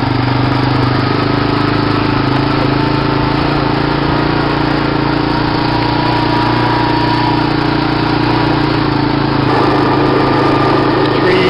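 ATV (four-wheeler) engine running steadily while being ridden, picking up a little about nine and a half seconds in.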